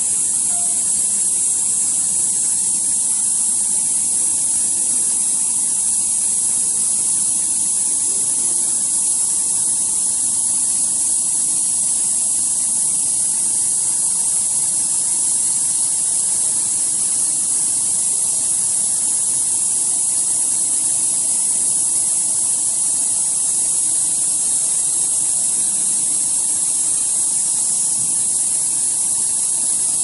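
Steady, high-pitched hiss of air from the LCD flex cable repair machine, running unchanged, with a faint hum beneath it.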